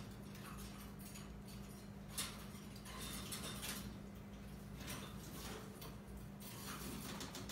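Two raccoons climbing and wrestling on a wire cage: scattered faint clicks and rattles of claws and feet on the metal bars, over a low steady hum.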